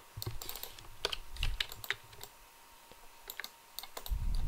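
Irregular clicking and tapping of a computer mouse and keyboard, in short clusters of keystrokes and button clicks, with a louder low thud near the end.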